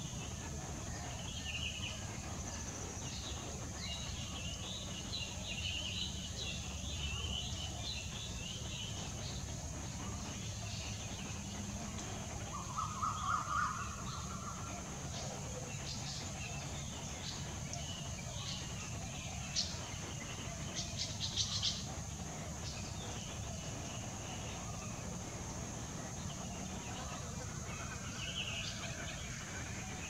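Garden ambience of assorted small birds chirping and calling over a steady high hiss. A louder short burst of chirps comes a little before halfway, and a few sharp high clicks about two-thirds through.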